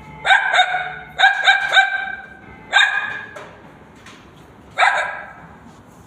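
A girl's voice mimicking a dog barking: two quick barks, then three, then two single barks with longer pauses between them.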